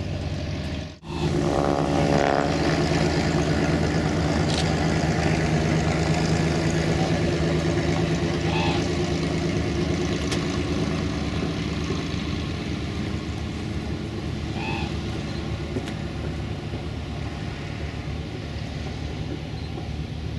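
Cessna 172's four-cylinder piston engine and propeller running steadily, loudest just after a brief dropout about a second in, then slowly fading.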